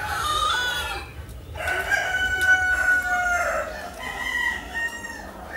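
A rooster crowing: a long drawn-out crow that drops in pitch at its end, with shorter calls just before it and again near the end.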